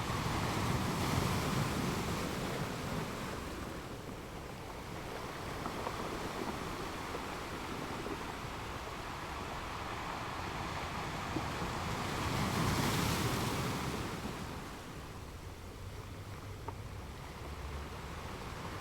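Ocean waves washing in on a shore in a steady rush, with two surges: one about a second in and a louder one about two-thirds of the way through.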